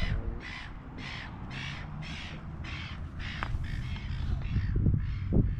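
A bird gives harsh calls in a long, even series, about two a second, over wind rumble on the microphone. Near the end come a couple of low thumps.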